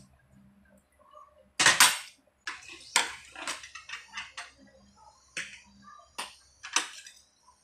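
Eating sounds: forks and spoons clicking against plates, with wet chewing and lip smacks, in short scattered clicks, the loudest about two and three seconds in.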